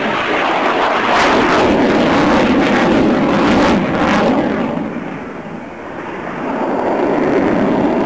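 General Dynamics F-16 Fighting Falcon's jet engine noise as the fighter flies past overhead, loud with a rough crackle for the first four seconds or so, dipping about five seconds in, then swelling again.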